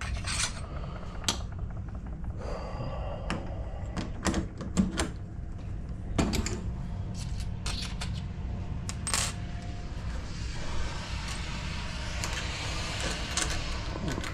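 Small metal lock hardware clinking and tapping as it is handled during a deadbolt installation, in scattered sharp clicks, with a stretch of hissy scratching noise near the end.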